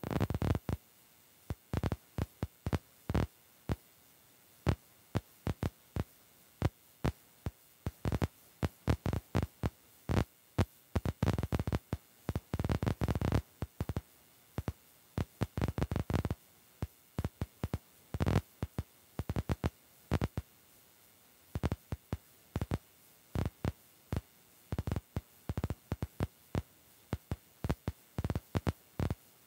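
Heavy rain pelting the car's roof and windshield in irregular sharp taps that come in quick clusters.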